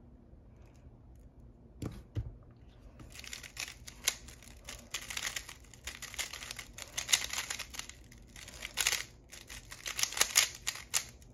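Plastic 3x3 speed cube being turned fast in a timed solve: a dense, irregular run of clicking and clacking layer turns starting about three seconds in, after a couple of short knocks.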